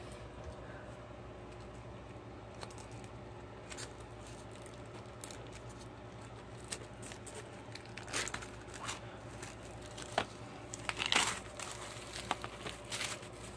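Plastic shrink wrap being picked at, torn and peeled off a Blu-ray case. A few faint clicks come first, then short bursts of crinkling and tearing from about two-thirds of the way in, loudest a little later.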